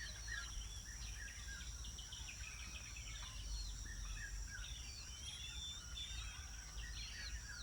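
Small birds chirping and whistling in quick, overlapping calls over a steady high insect drone, with a low rumble underneath.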